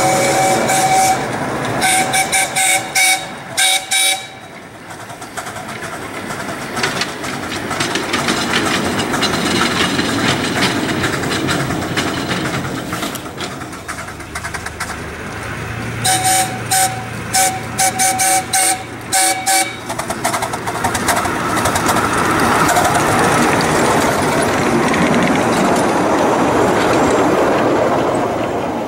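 Steam whistle of the Braddock Heights Cagney, a small backyard steam locomotive, sounding over the steady running noise of the engine and its cars. A long blast ends about a second in, then a quick series of short toots follows about two to four seconds in, and another series of short toots comes about sixteen to twenty seconds in.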